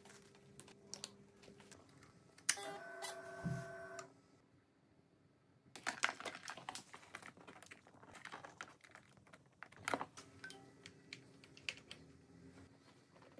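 Faint clicks and rattles of plastic electrical connectors and wiring being handled: a blade fuse pushed into its holder and a cable plug seated. The clicking is busiest about six seconds in.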